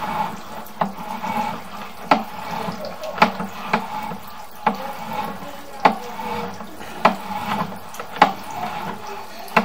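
Water running steadily from a bathroom sink faucet, turned on full, with sharp clicks at irregular spacing about once a second.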